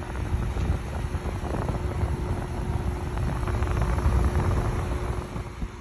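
White-Westinghouse 5200 BTU window air conditioner running: a steady hum over a low, uneven rumble of moving air, swelling slightly in the middle and easing near the end.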